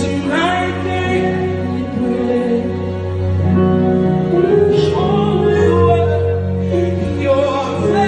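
Live gospel music: a male lead singer's voice holding long, sliding notes over sustained keyboard chords.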